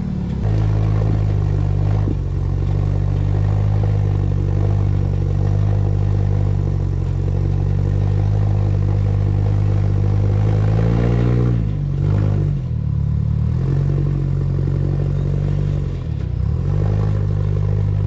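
Rock-crawling buggy engine running steadily under load, its revs dropping sharply about twelve seconds in, picking back up a second or so later, and dipping briefly again near the end.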